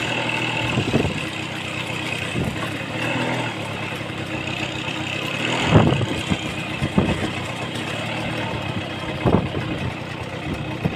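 A motor vehicle's engine running steadily, with a few short, louder sounds about six, seven and nine seconds in.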